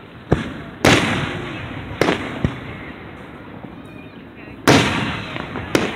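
Aerial fireworks shells bursting overhead at close range: about six sharp bangs, the two loudest about a second in and near the end, each trailing off over a second or so.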